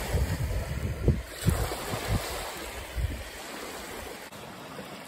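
Small waves washing up onto a sandy shore, with wind buffeting the microphone for the first few seconds before it eases off.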